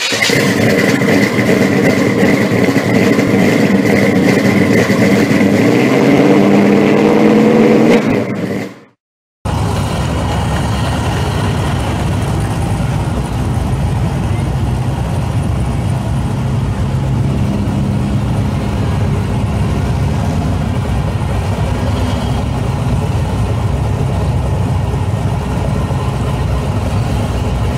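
For about nine seconds, a sound with steady and rising pitched tones, cut off by a moment of silence. Then a 1965 Chevy II Nova's engine idles steadily with a loud, low exhaust note.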